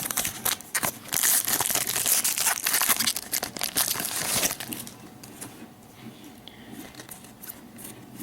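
Foil wrapper of a 2012/13 Panini Prizm basketball card pack crinkling and tearing as it is opened, for the first four to five seconds. After that there is only faint card handling.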